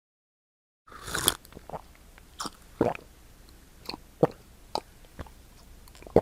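Close-miked mouth and throat sounds of a person swallowing, starting about a second in with a louder gulp, then a run of short wet clicking gulps roughly every half second.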